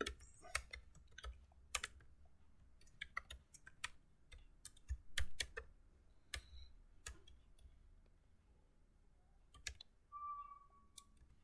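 Computer keyboard typing: irregular, faint keystroke clicks, some in quick runs, with a short faint steady tone about ten seconds in.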